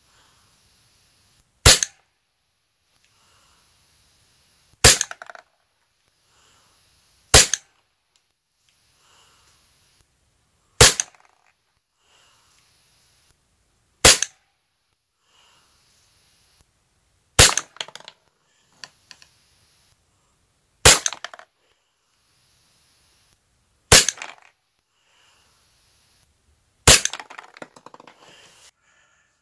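Walther PPQ gas-blowback airsoft pistol firing single shots: nine sharp reports, about one every three seconds, some followed by brief faint clicking.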